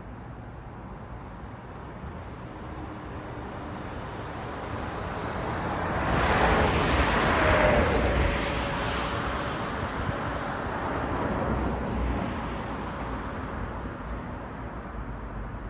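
Road traffic at night: a vehicle's tyre and engine noise swells as it passes, peaks about halfway through, then fades with a slight falling pitch. A second, smaller pass comes soon after, over a steady low hum of distant traffic.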